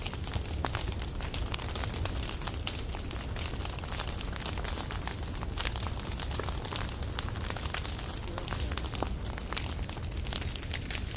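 Firewood burning: steady flame noise with a low rumble, broken by many small, irregular crackles and pops of the burning wood.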